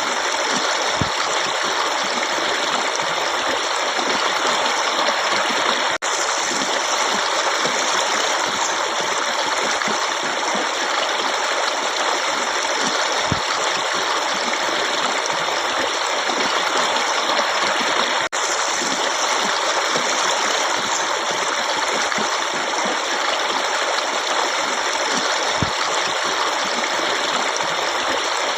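Forest stream of running water flowing steadily, a continuous rushing and splashing. The sound cuts out for an instant twice.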